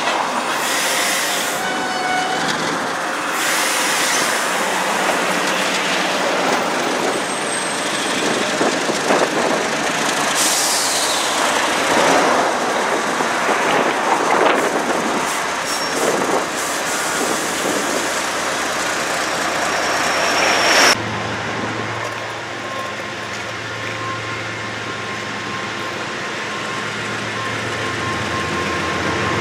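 Diesel-hauled freight train rolling slowly past, a steady rumble of wheels on rail with high wheel squeals over it. About two-thirds of the way through it cuts off suddenly to a quieter, steady low engine hum.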